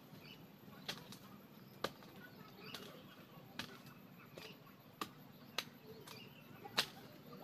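A series of about nine short, sharp strikes at uneven intervals, roughly one a second, the loudest near the end, over a faint low background.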